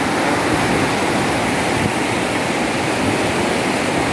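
Tidal river water rushing steadily through a sluice-gate opening and churning into whitewater below. The gate leaf has failed to close, so the high tide pours through, driven by a large difference in water level across the gate.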